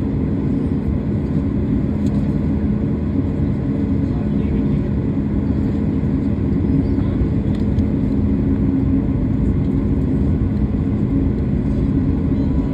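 Steady hum of an airliner's jet engines idling, heard inside the cabin while the aircraft stands still on the ground, with a few low tones held throughout.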